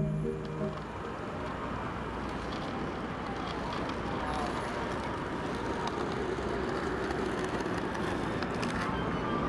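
Steady city street ambience: an even wash of traffic and crowd noise with no single sound standing out.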